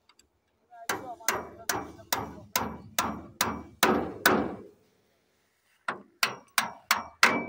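Hammer blows on metal at the open gear housing of a ZS1115 single-cylinder diesel engine, each strike ringing briefly: a steady run of about nine blows, roughly two a second, then after a short pause another quick run of blows near the end, typical of driving a new bearing or gear into place.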